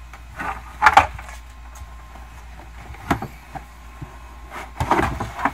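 Plastic push clips popping loose and carpet rubbing as a carpeted trunk side trim panel on a Tesla Model S is pulled free: a few short scrapes and pops, the loudest about a second in.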